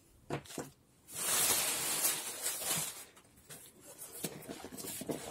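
Parcel packaging being handled and opened: a few light clicks, then a hissing rip or rustle of about two seconds starting about a second in, followed by scattered crinkles and taps.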